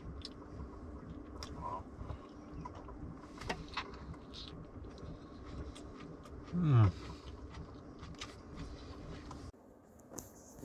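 Quiet background with a steady low hum and scattered small clicks, and one short low sound falling in pitch, like a person's voice, about six and a half seconds in.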